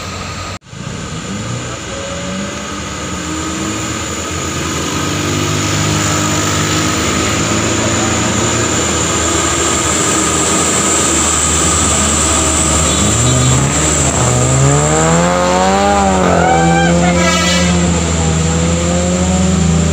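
Diesel engine of a loaded dump truck labouring up a steep grade, growing louder as it approaches. Near three-quarters of the way through, the engine pitch rises and then falls before running steady again.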